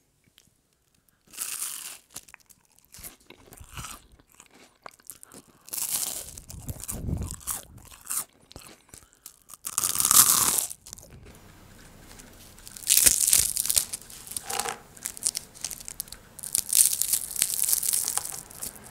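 Crisp deep-fried potato spirals (tornado potatoes) crunching and crackling as they are broken apart, in about five separate bursts with short quiet gaps between them.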